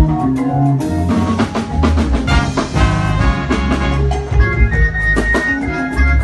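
Live band playing an upbeat Pentecostal praise tune instrumentally: a drum kit keeping a busy beat under held keyboard chords and a heavy bass line.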